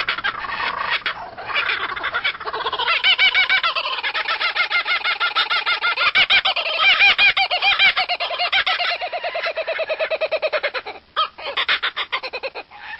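An animal calling in a long, loud run of rapid, pulsing squawks, breaking off briefly near the end.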